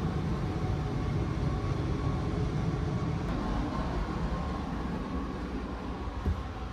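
Steady low hum and rumble inside a carriage of the West Express Ginga, a 117-series electric train, standing at the platform before departure with its onboard equipment running. A single short knock comes about six seconds in.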